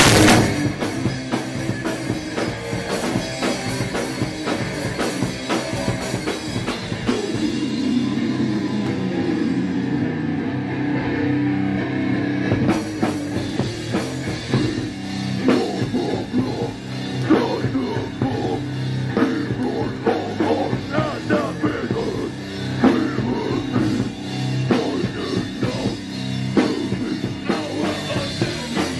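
Hardcore/beatdown band playing live: loud, heavy rock music with a pounding drum kit. The top end thins for a few seconds, then the full band comes back in sharply about halfway through.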